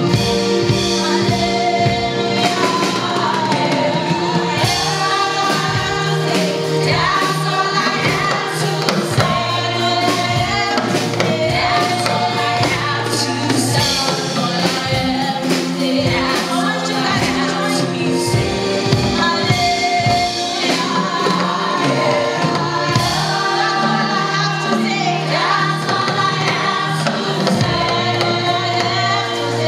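A small choir of women singing a gospel song in harmony, accompanied by a live band with keyboard and drum kit.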